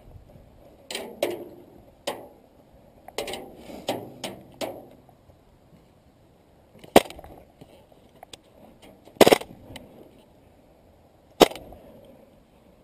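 Airsoft gun firing single shots: three sharp clacks a couple of seconds apart in the second half. Softer knocks and scuffs come in the first few seconds.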